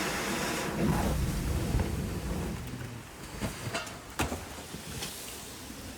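Floodwater rushing out of a manhole in heavy rain, a loud roaring noise with wind on the microphone, easing after about three seconds, with a few sharp knocks near the middle.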